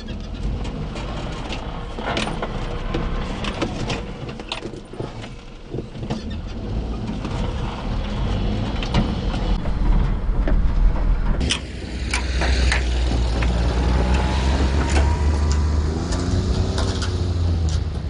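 Daihatsu Hijet 660cc mini-truck engine pulling in four-wheel drive with the diff locked over rutted sand, heard in the cab with the cab and loose items rattling and knocking over the bumps. The engine works harder and louder from about twelve seconds in.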